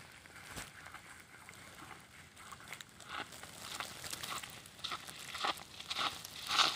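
Footsteps and dry grass rustling and snapping underfoot, faint at first and louder over the last couple of seconds as a walker comes close.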